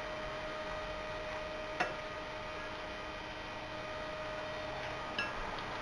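Steady electrical hum with a thin, constant tone over it, broken by two small clicks, one about two seconds in and one near the end.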